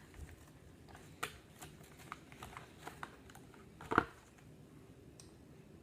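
Handling noises on a tabletop: scattered light clicks and taps, with one louder knock about four seconds in.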